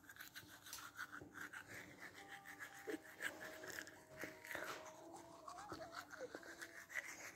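Toothbrush scrubbing teeth, a faint run of quick back-and-forth strokes.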